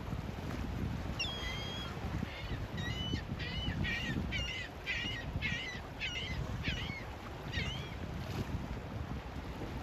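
Wind rumbling on the microphone, with a bird calling over it: one longer call about a second in, then a quick run of short calls, two or three a second, that stops near the eighth second.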